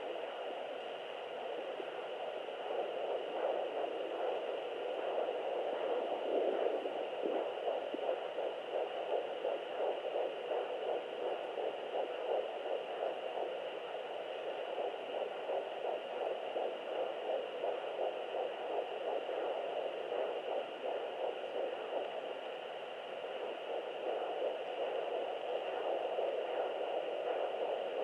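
Fetal heartbeat at 11 weeks picked up by a handheld Sonoline doppler: a fast, even, pulsing whoosh through the doppler's speaker.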